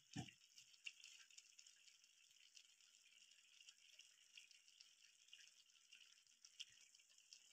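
Near silence: a faint steady hiss with a few soft ticks.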